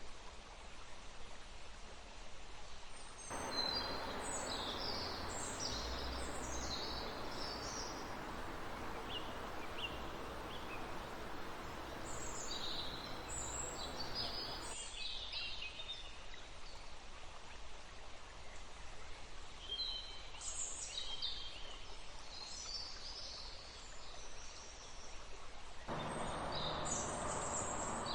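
Forest birds chirping and calling over the steady rush of a running river. The water noise steps up abruptly about three seconds in, drops back about fifteen seconds in, and rises again near the end.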